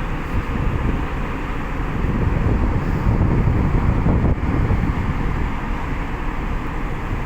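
Steady low rumble of heavy ship machinery during cargo discharge, growing louder for a couple of seconds in the middle before easing, with wind buffeting the microphone.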